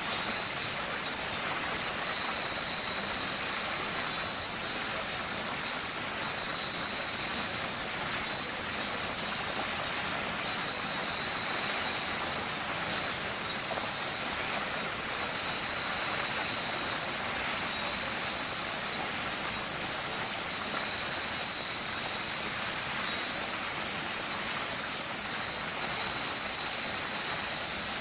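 Cicadas chorusing in summer heat: a steady, shrill high-pitched drone with a faint pulsing beneath it that never lets up.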